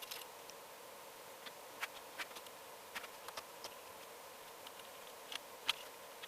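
Faint, irregular clicks and ticks of a spline roller tool pressing rubber spline and screen mesh into a screen frame's channel, over a steady faint hum.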